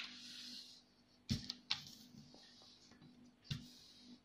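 Faint rustle of a sheet of origami paper sliding on a wooden tabletop as it is folded, then a few soft knocks as hands press the fold flat against the table, two of them with a dull thud.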